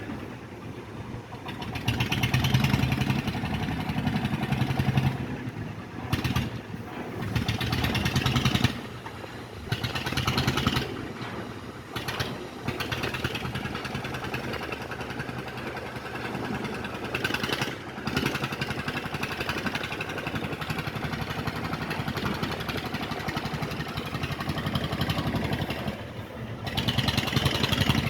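An engine running with a fast, even pulse, its loudness swelling and falling several times.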